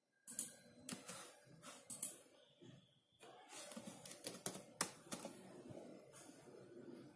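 Typing on a computer keyboard: irregular clicking keystrokes, with a short lull about three seconds in.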